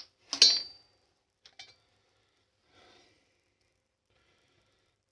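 Metal parts and tools clinking as they are handled on the bench. There is one sharp clink with a short ring about half a second in, then two light ticks, faint handling, and then it goes quiet.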